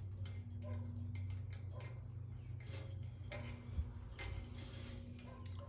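Trailer wiring being pulled hand over hand through a hollow steel frame tube: faint scraping and rustling strokes about once a second, over a low steady hum, with one small click a little past the middle.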